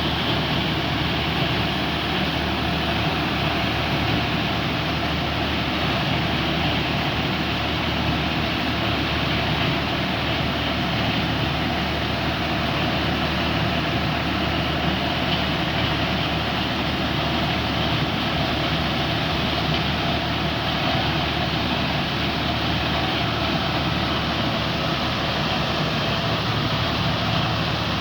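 Tractor-driven corn sheller running steadily: a dense, even mechanical rush over the low hum of the tractor's engine.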